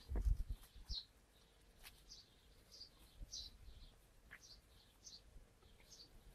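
Faint high chirps from a small bird, repeating about once a second, with a few low thumps in the first second.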